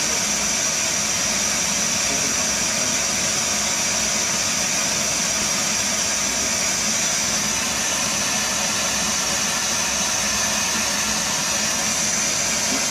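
A steady, loud hiss with a constant high-pitched whine in it.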